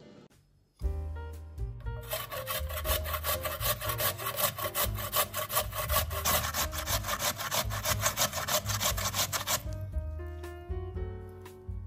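Raw potato being grated on a stainless-steel box grater in quick, regular scraping strokes. The strokes start about two seconds in and stop shortly before the end, over soft background music.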